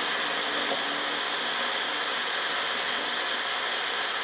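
Magic Bullet personal blender running steadily, its motor whirring as it blends vegetables.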